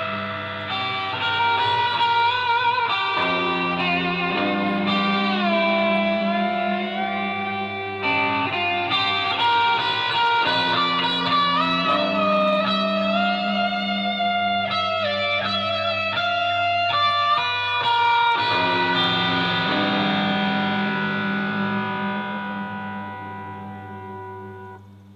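Guitar played through effects, with sustained, wavering melody notes over a steady low drone, fading away near the end.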